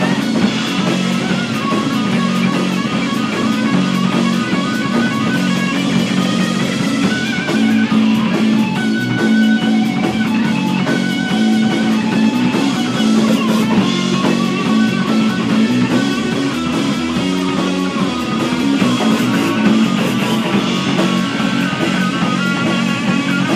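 Rock band playing: a guitar picks out a lead of stepping note runs over a steady bass line and drums.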